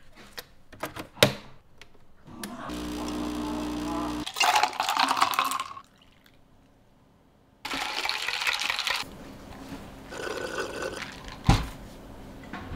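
Water running in short bursts, with scattered clicks and knocks and a brief steady hum.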